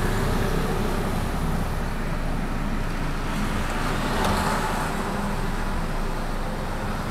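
Honda Brio Satya's power window motor raising the side glass about four seconds in, over a steady low hum of vehicle and street noise.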